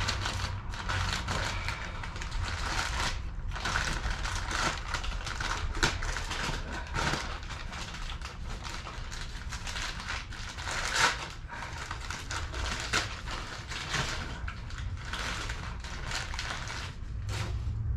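Hand ratchet wrench clicking in quick runs, with metal tool rattles, as the transmission mount bolts on a 2013 Dodge Dart are undone. A sharper clank comes about 6 s in and again about 11 s in.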